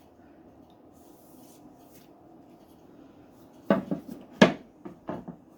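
Faint steady hum, then a cluster of light knocks and rubbing about four seconds in, from handling a polymer strop and pieces of paper towel.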